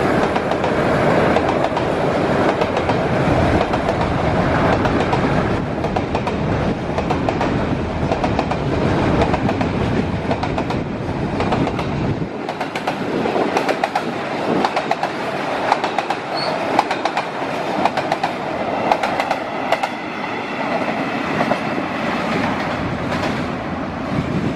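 Container freight train rolling past, its steel wheels clicking over the rail joints amid a steady rattle of the wagons. A deep rumble underneath drops away about halfway through, leaving the clicking and rattling.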